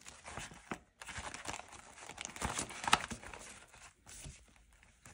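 Crinkling and rustling of a clear plastic binder pocket and paper bills being handled and pressed down, with a few sharp clicks and taps, the loudest about three seconds in.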